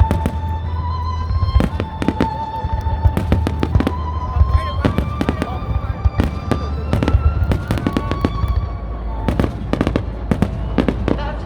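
A fireworks finale: many sharp bangs going off in quick succession, some overlapping, over a continuous low rumble, with music playing underneath.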